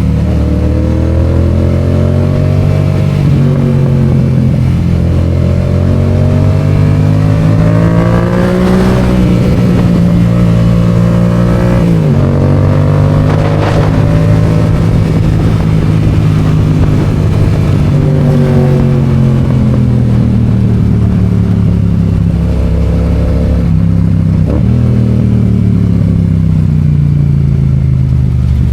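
Yamaha FZ-07's parallel-twin engine running under way, its pitch rising and falling with the throttle, with a sudden drop in revs about twelve seconds in and again near the end, as at gear changes.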